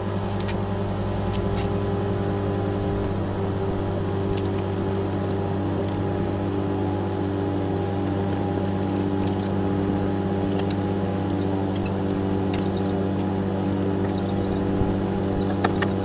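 Sanyo microwave oven running: a steady electrical hum from its transformer and magnetron, with a couple of faint clicks near the end.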